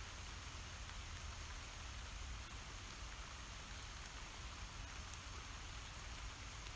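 Steady rain falling: an even hiss with a low rumble underneath.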